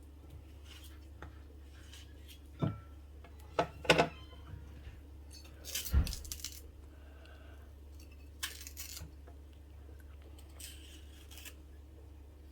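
Kitchen utensils and dishes being handled: a few separate clinks and knocks, the loudest about four and six seconds in, over a steady low hum.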